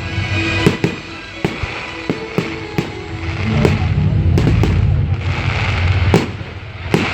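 Fireworks going off in quick succession, about a dozen sharp bangs at uneven intervals, the loudest about six seconds in, over loud music.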